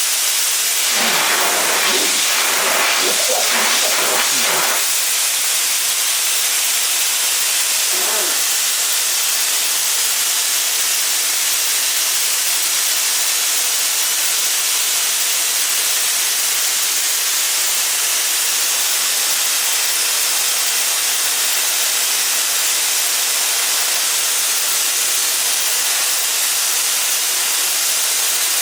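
Compressed air hissing steadily out of an 80-gallon Champion Centurion two-stage compressor's tank as the tank is emptied down toward the pressure at which the compressor kicks on. Voices are heard briefly in the first few seconds and again about eight seconds in.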